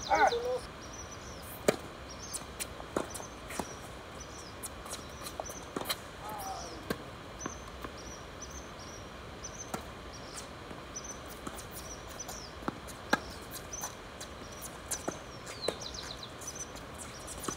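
Tennis ball struck by rackets and bouncing on a hard court during a doubles rally: sharp pops every one to four seconds.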